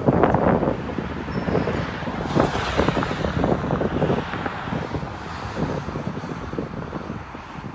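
A car driving by on a road, with wind on the microphone.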